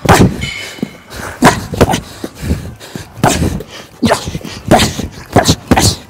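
Sharp, forceful exhalations and grunts from a man straining against a resistance band, a dozen or so short bursts in quick succession, often in pairs.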